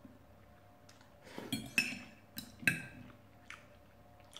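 Metal knife and fork clinking against a plate while cutting food: a handful of short, sharp clinks, most of them between about one and a half and three seconds in.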